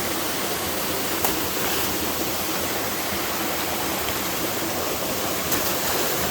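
Steady, even rush of fast-flowing creek water, with two faint ticks about a second in and near the end.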